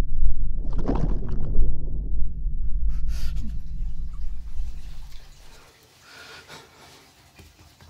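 Muffled underwater sound of bathwater: a deep, heavy rumble with a louder swell about a second in. Near three seconds in it changes abruptly to an airy hiss, and the low rumble stops about five and a half seconds in, leaving only faint hiss.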